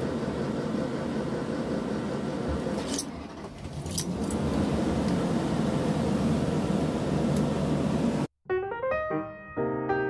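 The engine of a 2005 Forest River Georgetown 370 XL motorhome runs just after being started with the key, heard from inside the cab, with two sharp clicks about three and four seconds in. Near the end it cuts off abruptly and piano music begins.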